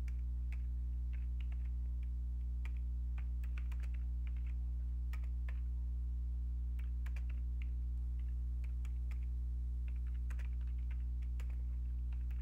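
Typing on a computer keyboard in short runs of keystrokes, one run per word or two, with brief pauses between, over a steady low electrical hum.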